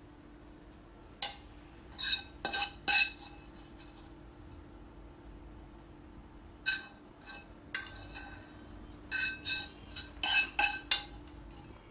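A metal fork scrapes and taps against a nonstick frying pan and plate as caramelized onions are pushed out onto rice. It comes as scattered groups of short clinks with a brief metallic ring.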